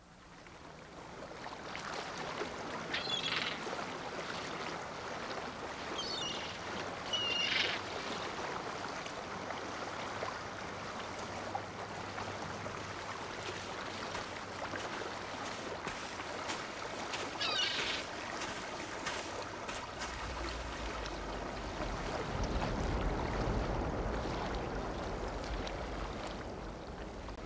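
Steady wash of water, like waves or surf, with a few short high chirps scattered through it. A deep rumble swells in about two-thirds of the way through and fades near the end.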